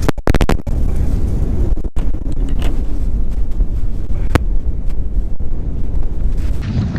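Strong wind buffeting the microphone: a constant low rumbling noise. A quick run of clicks comes just after the start, and a single click about four seconds in.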